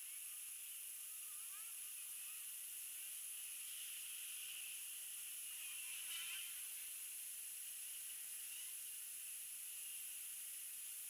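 Steady high hiss of heavy rain, with faint short chirps about a second and a half in and again about six seconds in.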